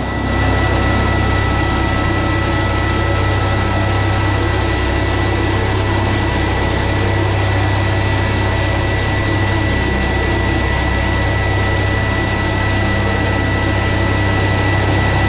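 Doosan MYNX 6500 vertical machining center face-milling 6Al-4V titanium with a 4-inch Kennametal Dodeka high-feed shell mill at a full 80-thousandths depth of cut under flood coolant. It makes a steady, even cutting noise with a low hum and a thin high tone: a smooth power cut that the machine takes with ease.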